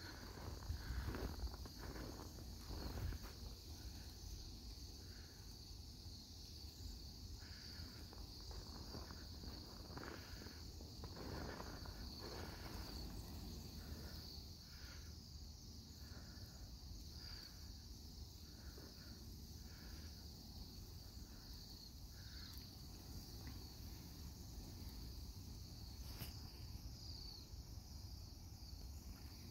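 A large flock of Bohemian waxwings giving continuous high, thin trilling calls, with a low rumble underneath that is strongest in the first few seconds.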